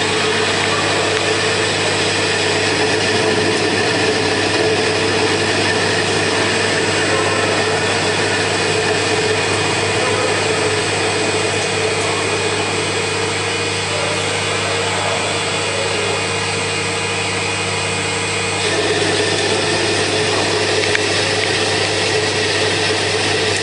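CK6140T CNC lathe running: a steady machine hum with a constant whine, its tone changing slightly about three-quarters of the way through.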